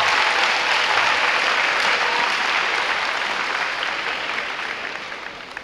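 Audience applauding, the clapping thinning and fading away over the last two seconds or so.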